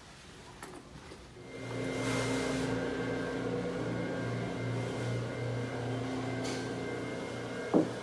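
A steady droning hum of several held tones, slowly pulsing in its lowest note, that comes in about a second and a half in. A single short knock sounds near the end.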